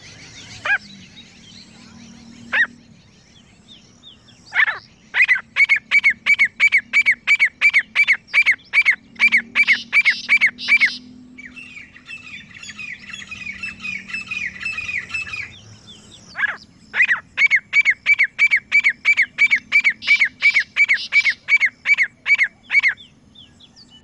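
Grey francolins calling: loud, ringing notes repeated evenly about two and a half times a second in two long bouts. Between the bouts comes a quieter, faster run of notes, and two single notes sound near the start.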